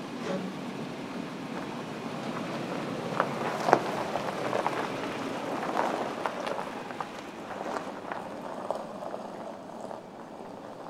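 Steady outdoor background noise, with scattered light clicks and knocks; the sharpest comes a little under four seconds in.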